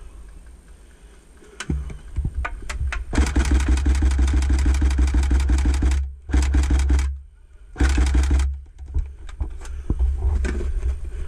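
Airsoft electric gun firing full-auto. One long rapid burst of about three seconds is followed by two short bursts, with scattered single cracks before and after.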